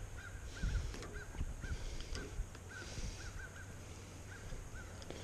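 A bird calling in a quick series of short, clipped notes, about three a second, stopping near the end, over a low wind rumble on the microphone.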